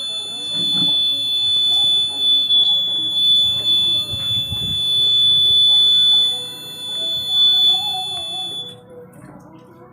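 Active buzzer of a home-made laser security alarm sounding one continuous high-pitched beep, cutting off suddenly near the end. The alarm has been triggered.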